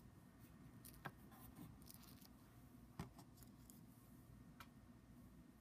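Near silence: room tone with three faint, light clicks.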